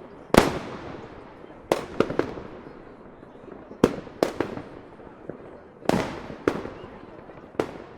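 Fireworks going off: about ten sharp bangs at irregular intervals, some in quick clusters of two or three, each trailing off in an echo.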